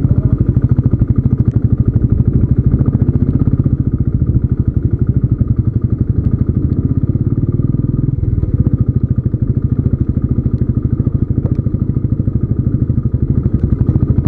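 Royal Enfield Classic 350's air-cooled single-cylinder engine running steadily under way, its exhaust beats coming as a fast, even pulse.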